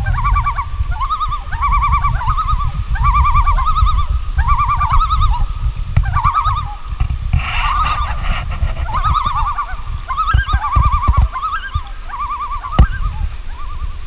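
A waterbird calling over and over in quick wavering runs of notes, about one call a second, over low wind rumble on the microphone.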